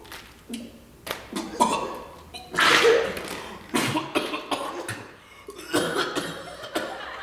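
A man coughing hard into his hand, a series of separate coughs with the loudest about three seconds in: staged coughing up of blood, acting out lungs damaged by inhaled volcanic ash.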